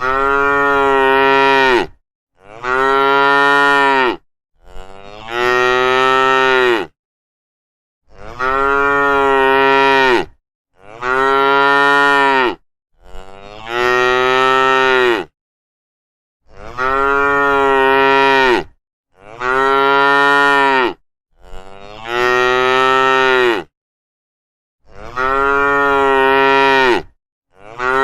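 Cows mooing, one loud drawn-out moo after another every two to three seconds, each call rising and then falling in pitch, with total silence between calls.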